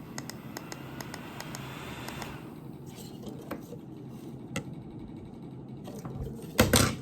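Small plastic parts of a neck cooler being handled during a teardown: light clicks and scratching, with a louder clatter near the end.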